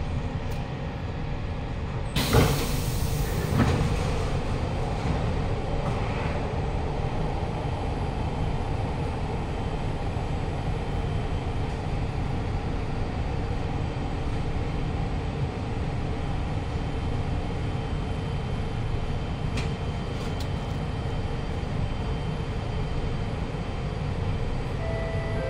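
Siemens C651 metro train's doors sliding open about two seconds in, a loud rush followed by a second smaller clunk, then the steady hum of the train's equipment while it stands at the platform with doors open.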